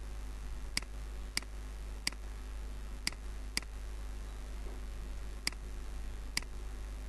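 Computer mouse button clicking seven times at uneven intervals, sharp and short, over a steady low electrical hum.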